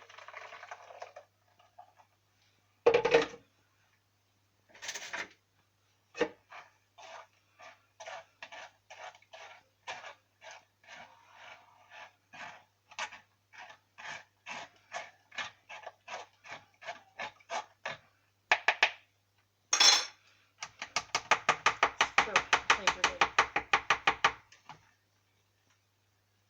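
A spoon scraping and pressing blended lemon-and-banana juice through a sieve: a steady run of short strokes, two or three a second, with a few louder knocks against the utensils. Near the end the strokes quicken to a fast scraping before stopping.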